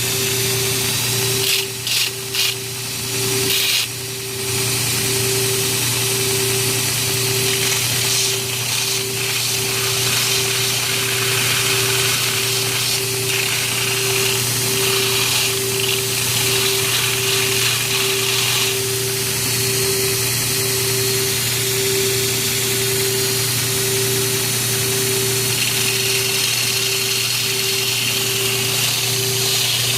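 Electric power tool running steadily with a pulsing hum. It drops out briefly a few times in the first few seconds, then runs without a break.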